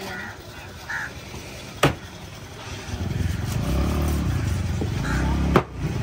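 A motor vehicle's engine running close by, its low drone building up about halfway through. A sharp knock comes near the start and another just before the end.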